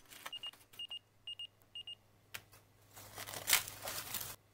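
A digital timer beeps four quick double beeps. Then clingfilm crinkles as it is peeled off a bowl of dough, stopping just before the end.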